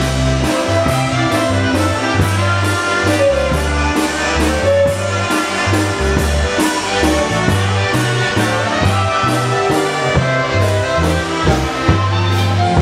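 Live polka band playing a Polish waltz, an instrumental passage with no singing, over a steady beat and a moving bass line.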